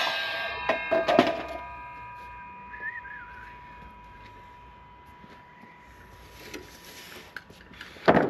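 A power saw stops right at the start. Its fading ringing tone hangs on while a few wooden knocks and clunks sound about a second in, and a sharp, loud knock comes near the end, typical of timber being handled during wall framing.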